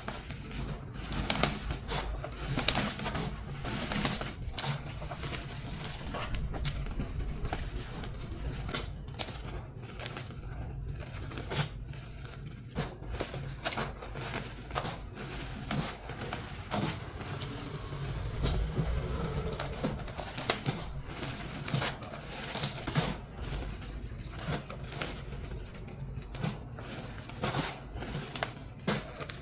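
Dyed and re-pasted gym chalk blocks being crushed and crumbled by hand, a dense irregular string of crunches and crackles.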